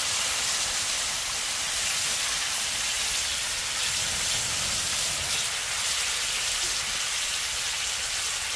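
Onion and ginger-garlic-chilli paste sizzling steadily in hot oil on a flat tava griddle.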